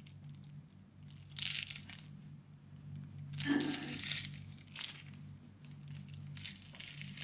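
Plastic film wrapper of an onigiri (rice ball) crinkling and tearing as it is pulled open by hand, in several short rustling bursts.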